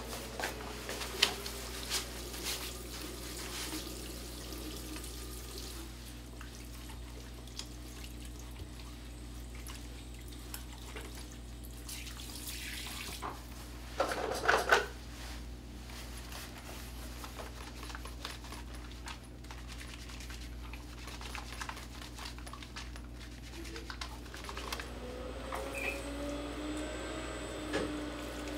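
Tap water running into a washbasin as hands are washed under it, with irregular small splashes and a brief louder burst of noise about halfway through.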